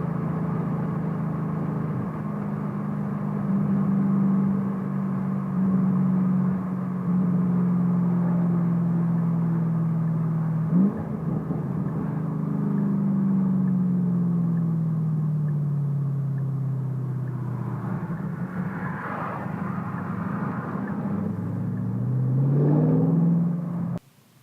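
2014 Ford Shelby GT500's supercharged 5.8-litre V8 running under way. Its note holds steady, falls away gradually in the middle, and rises again near the end before cutting off suddenly. There is one sharp click about eleven seconds in.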